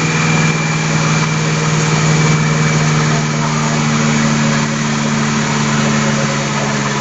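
Engine of a heavy construction machine idling steadily, with an even hum that does not change.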